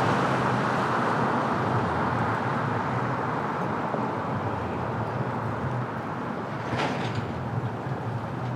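Steady rushing rumble of vehicle noise that eases off slightly, with a brief sharp clatter about seven seconds in.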